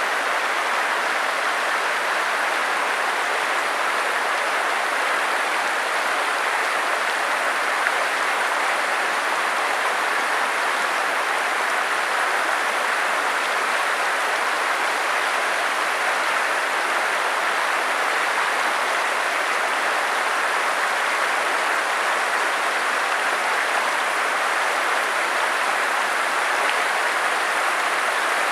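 Steady rush of a flowing stream, an even wash of water noise with no break or change.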